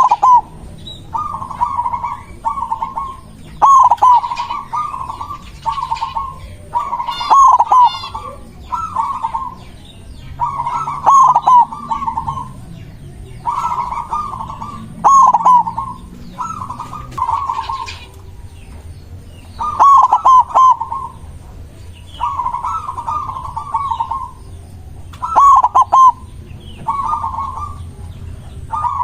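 White zebra dove (perkutut) singing over and over: short phrases of quick rolling coo notes, repeated every second or two, with faint high chirps from other small birds between them.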